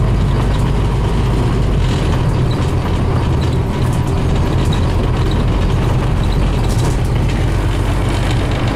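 Scania CN270UB city bus under way, heard from inside the passenger cabin: a steady low diesel engine drone with road noise and a few light rattles from the body.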